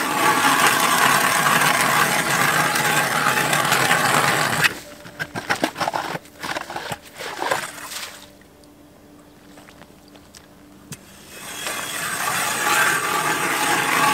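Hand ice auger drilling into ice: a steady grinding scrape of the blades that stops about four and a half seconds in, giving way to scattered knocks and clicks, then starts again and grows louder near the end.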